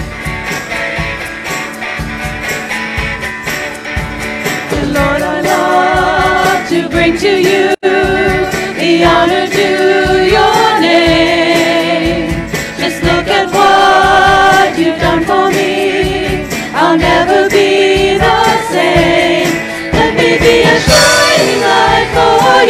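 Upbeat worship song: a group of voices singing in unison over drums and guitar, with a steady beat. The sound drops out for an instant about eight seconds in.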